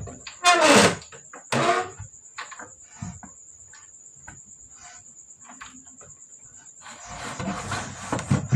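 A cricket trills steadily in the background while kitchen handling sounds go on: scattered clicks and knocks, two louder scraping sounds in the first two seconds, and a busier run of clattering near the end.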